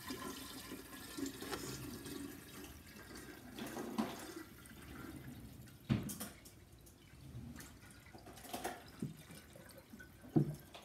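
Distilled water poured in a steady stream from a plastic gallon jug into a glass jar, with a few short, sharper sounds about 4, 6 and 10 seconds in.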